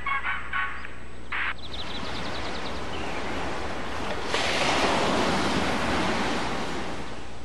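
Ocean surf: waves washing up on a beach, growing louder about four seconds in. The last notes of a song fade out at the start.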